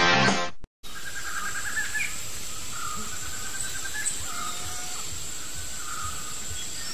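Commercial music cuts off abruptly just after the start. After a short gap comes rainforest ambience: a steady high insect whine, with bursts of rapid chirping calls every second or two.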